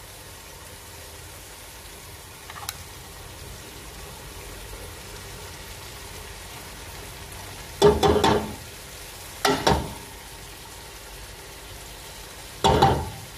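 Tomato-paste sauce sizzling steadily in a pot as canned sweet corn is emptied into it, with three loud knocks about 8, 9.5 and 12.7 seconds in as the tin can is knocked against the pot to empty it.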